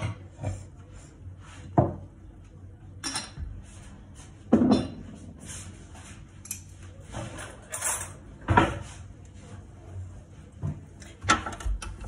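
Ceramic mugs and dishes being handled and put away: a series of separate knocks and clinks, about five louder ones, as they are set down on the counter and shelf.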